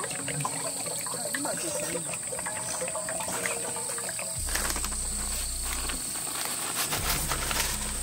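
Insects trilling in one steady high-pitched drone, over light clicks and clinks of camp cooking. A low steady hum comes in about halfway, drops out briefly and returns.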